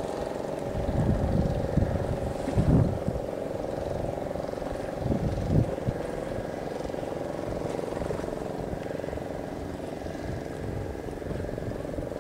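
Steady hum of an engine running. A few surges of low rumbling come about a second in, near three seconds and around five to six seconds.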